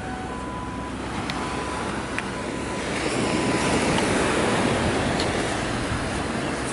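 Metal detector sounding several short, steady beeps over the target in the first few seconds, over a steady rush of surf and wind. The rushing noise swells louder from about three seconds in.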